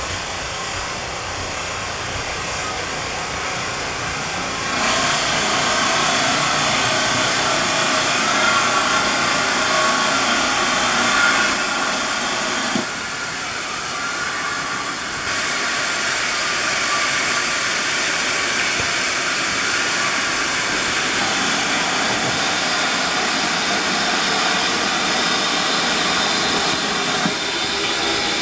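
GWR 2884 class 2-8-0 steam locomotive No. 3802 moving slowly with a steady hiss of escaping steam. The hiss grows louder about five seconds in, drops briefly around thirteen seconds and comes back.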